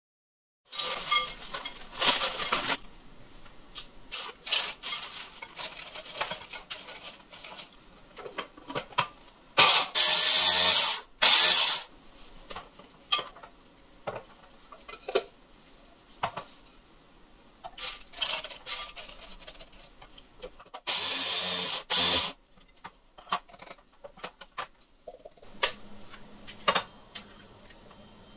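Kitchen prep handling noises, small clicks and rustles of food and utensils, broken by an electric mini chopper grinding tortilla chips into crumbs. The chopper runs in short pulses: two about ten seconds in and one longer burst about twenty-one seconds in. Near the end come the taps of eggs being cracked.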